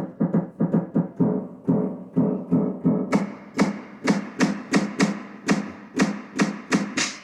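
Drum-like percussion sounds played on a keyboard synthesizer: a steady run of low hits, about two to three a second. About three seconds in, each hit gains a bright, crisp top.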